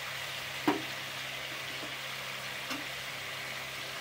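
Chicken pieces sizzling steadily in hot oil in a metal karai (wok), with a sharp knock of the spatula against the pan about a second in and a softer one near the end.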